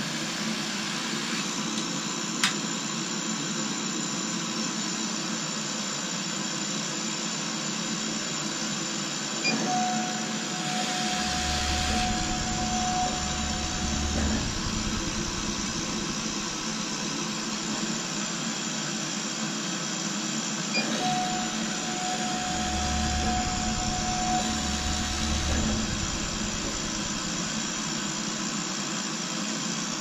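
Laser cutter running through a cut in plexiglass: a steady whir of its fans with a low hum. Twice, about ten and twenty seconds in, a steady higher whine with low thuds comes in for four or five seconds.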